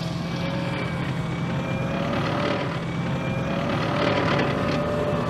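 Amphibious assault vehicle's engine running steadily under load, with a steady whine over it.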